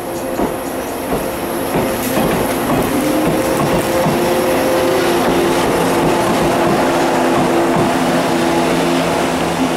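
Shinano Railway Class 169 electric multiple unit passing close by, its wheels clacking over rail joints under a steady, multi-toned hum.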